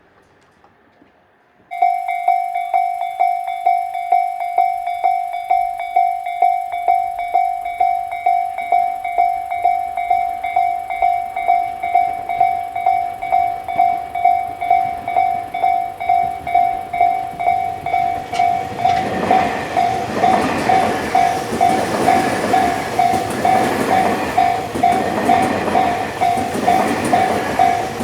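Japanese railway level-crossing alarm on the Tobu line starts suddenly about two seconds in, a clear electronic 'kan-kan' at about two strokes a second. From about nineteen seconds a Tobu train runs through the crossing, its wheels and cars rumbling under the continuing bell.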